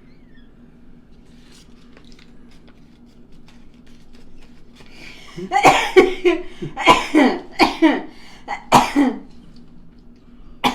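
A person coughing hard, about six coughs in quick succession starting about five seconds in.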